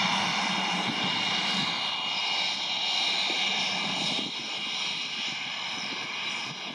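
Twin turbofan engines of a Cessna Citation CJ3 business jet at taxi power: a steady whine with high whistling tones over a rushing hiss, slowly fading as the jet taxis away.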